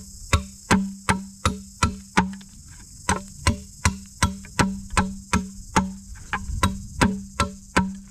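Blade chopping bamboo in quick, even strokes, about three a second, each stroke giving a hollow ringing knock. The strokes stop just before the end.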